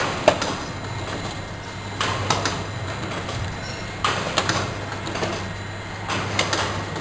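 A Chirag mono carton packing machine running, with a steady low hum and a cluster of sharp mechanical clacks about every two seconds as it works through its cycle.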